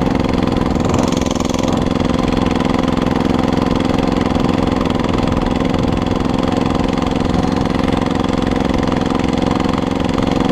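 The small engine of a homemade motorized bike runs steadily at an unchanging pitch, putting along slowly.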